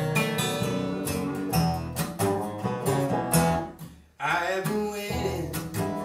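Acoustic bluegrass band playing: banjo, acoustic guitar, upright bass and a resonator guitar (dobro) picking a lively tune. The band stops together for a moment about four seconds in, then comes straight back in.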